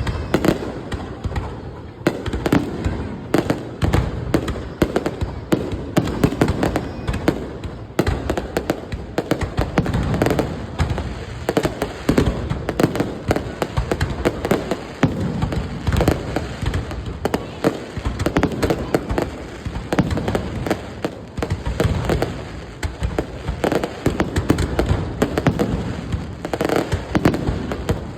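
Fireworks display: a continuous, rapid barrage of bangs and crackles, many per second with no letup.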